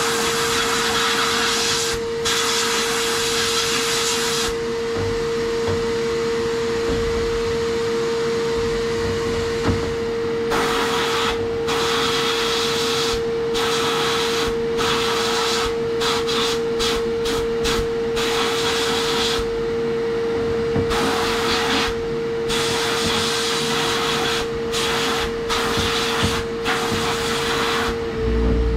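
Sandblasting cabinet in use: the blast gun hisses in bursts as media is blasted over a small finned part, over a steady motor hum. There are two long blasts at the start, a pause of about six seconds, then many short on-off bursts from about ten seconds in.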